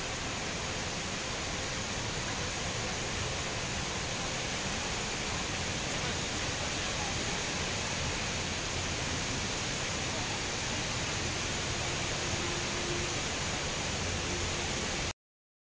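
Steady rushing hiss of the Rain Vortex, a tall indoor waterfall pouring from a glass-dome oculus into a pool, which cuts off suddenly near the end.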